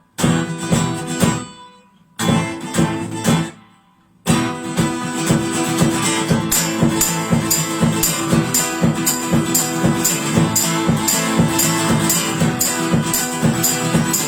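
Acoustic guitar song intro: two strummed chords, each left to ring out and fade, then from about four seconds in a fast, steady strum joined by a tambourine hit regularly, about three times a second.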